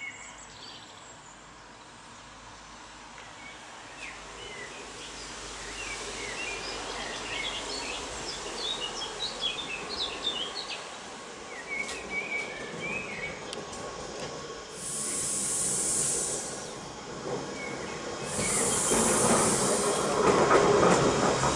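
Deutsche Bahn class 425 electric multiple unit approaching on the curved track out of the tunnel, its running noise growing steadily louder, with two short spells of high hiss in the second half. Birds chirp in the first half.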